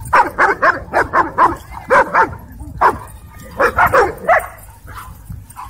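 Dogs barking in quick runs of sharp barks, about four a second. A run opens the stretch, a few single barks follow, then another short run comes, and it trails off near the end.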